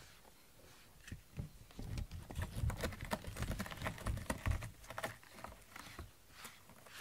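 A cat's paws and claws scuffing and scratching on a corrugated cardboard scratcher close to the microphone: irregular scratchy rustles with soft thumps, busiest from about two seconds in to past the middle.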